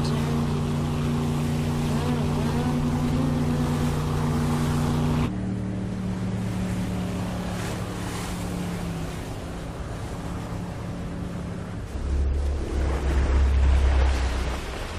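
Engine of a rigid-hull inflatable boat running at speed over choppy sea, with the wash of waves. About five seconds in, the sound cuts to a quieter engine hum and water. From about twelve seconds a deep low rumble swells in and is the loudest part.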